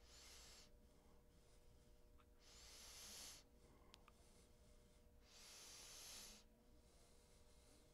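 Slow breathing close to a clip-on lapel microphone: three soft breaths about two and a half seconds apart, over faint room tone with a low steady hum.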